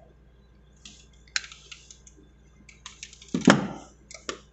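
Scattered short clicks and rustles of hand work on a wiring bench: pliers and a blue control wire being handled, with one louder knock about three and a half seconds in as a tool is set down.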